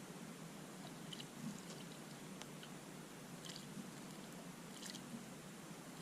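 Small garden birds pecking at seed close to the camera: a few faint, irregular clicks and crunches over a steady background hiss.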